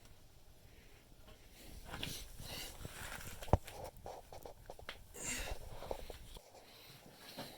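Light handling noises of loose parts being moved: scattered rustles, scrapes and small clicks, with one sharp tap about three and a half seconds in.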